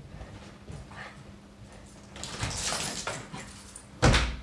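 A dog whimpering and barking, worked up over rabbits outside, while a door is opened to let it out. A longer rushing sound comes in the middle and a sudden loud thump near the end.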